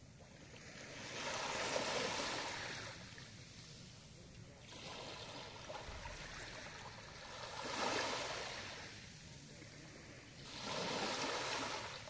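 Small waves washing onto a sand-and-pebble shore: a soft hiss of surf that swells and fades, three main washes a few seconds apart with a weaker one between the first two.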